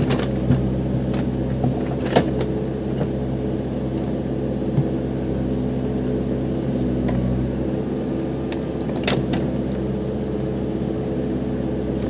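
Case 580 Super M backhoe loader's diesel engine running steadily, with a few sharp knocks or clanks, the loudest about two seconds in and about nine seconds in.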